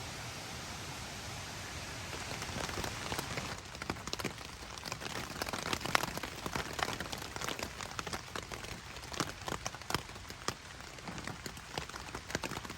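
Rain falling steadily. From about three and a half seconds in, many large drops hit sharply, one by one.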